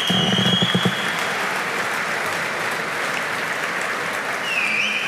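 An audience applauding steadily, with a thin high tone heard briefly at the start and again near the end.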